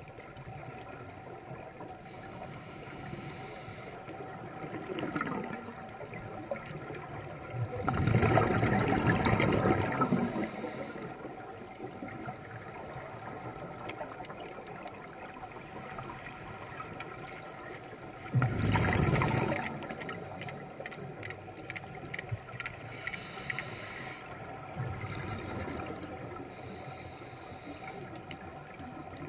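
Underwater scuba diver breathing through a regulator: two loud rushes of exhaled bubbles, one of about two and a half seconds about eight seconds in and a shorter one about eighteen seconds in, over a faint steady hum with several held tones.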